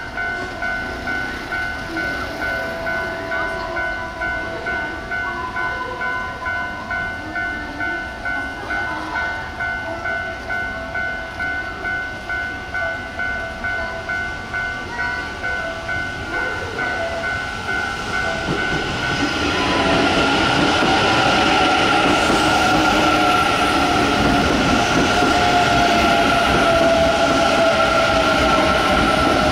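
A steady ringing tone that pulses about twice a second, then from about two-thirds in an electric train comes past, much louder, with a tone that slowly falls near the end.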